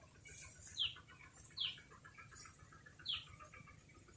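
A bird calling outdoors: short whistled notes, each sliding down in pitch, repeated about every second, over a faint fast ticking chirr.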